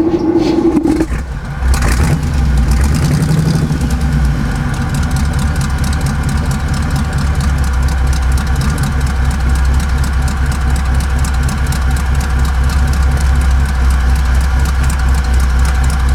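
Truck engine catching about two seconds in, after a steady whine cuts off, then idling steadily with a low, even rumble.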